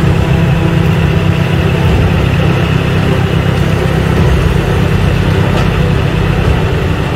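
Heavy MAN expedition truck's diesel engine running steadily at low speed as the truck crawls over a steel bridge.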